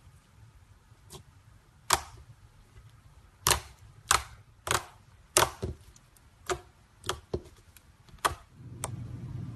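Clear slime being squeezed and pressed, sharp pops and clicks of trapped air about a dozen times at uneven intervals. A steady low rumble comes in near the end.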